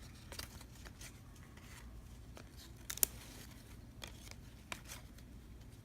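Baseball cards being handled and flipped through: soft scattered clicks and rustles, with one sharper snap about three seconds in.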